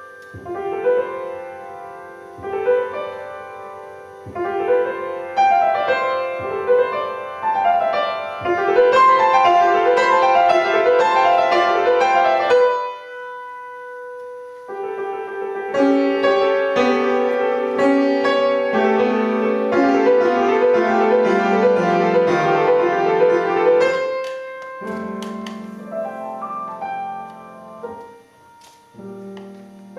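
Solo piano playing a gentle melodic piece, with flowing repeated-note figures. About halfway a single note is held alone for a couple of seconds before the playing resumes with a falling bass line, then softens near the end.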